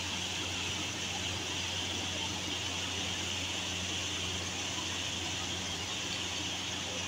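Steady hiss with a low hum beneath it.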